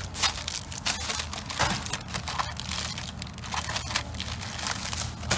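Plastic bag and candy wrappers crinkling and rustling in irregular bursts as a hand sorts through packaged candy.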